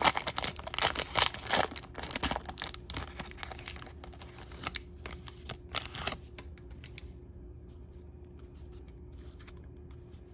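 Foil wrapper of a trading-card pack crinkling and tearing as it is opened, with light clicking of cards being handled. The crinkling is dense for about the first six seconds, then thins to a few faint ticks.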